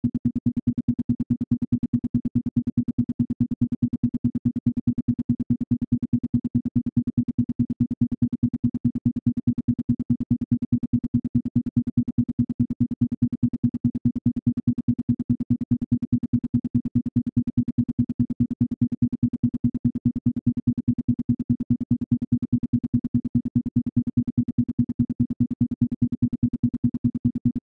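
Isochronic tone for brainwave entrainment: a single low synthesized tone pulsing on and off rapidly and evenly, several pulses a second, at a steady level.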